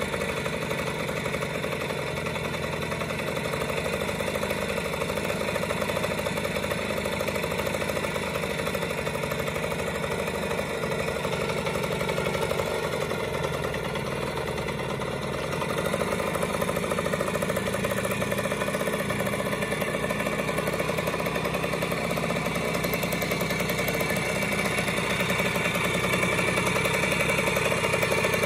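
1973 Fantic Super Rocket's 49cc two-stroke single-cylinder engine running steadily at idle, getting a little louder about halfway through and again near the end.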